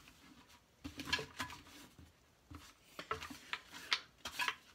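Trading cards and plastic binder pages being handled: scattered light rustles and small clicks, in two clusters about a second in and near the end.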